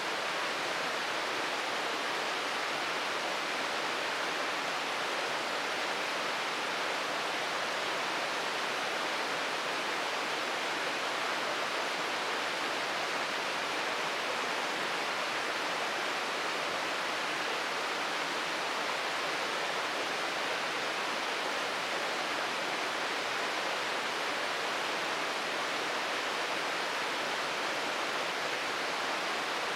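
Shirogane Falls, a waterfall, pouring: a steady, unbroken rush of falling water.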